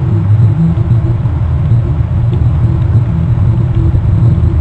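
A steady, loud low rumble with a droning hum throughout, like a motor running.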